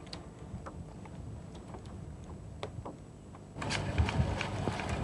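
Outdoor location sound: a low rumble of wind on the microphone with scattered light clicks, growing louder about three and a half seconds in.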